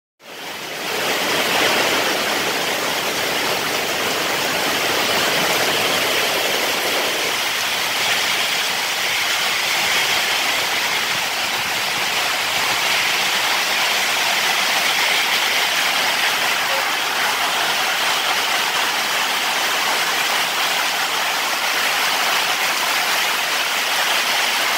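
Heavy tropical downpour: a loud, steady hiss of rain pouring down.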